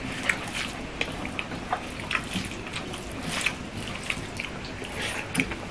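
Wet squelching and smacking of eating with the hands: fingers mashing and mixing rice with fish curry on steel plates, along with chewing, in irregular sharp wet clicks.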